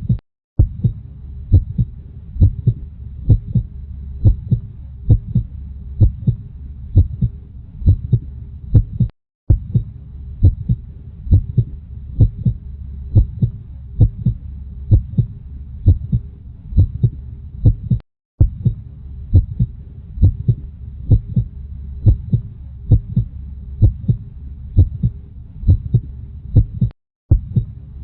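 Heartbeat recording: steady paired lub-dub thumps, a little faster than one beat a second, over a low hum. There are brief gaps of silence about every nine seconds.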